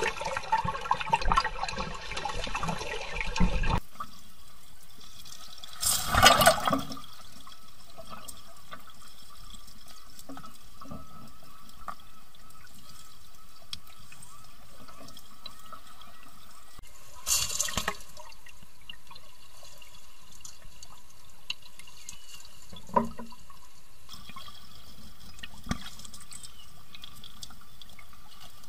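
Shallow stream water gurgling and lapping around a half-submerged camera, with splashing as a black bear wades and dips into the water. Heavy splashing in the first few seconds, then two short loud splashes about six and seventeen seconds in, over a steady flow of running water.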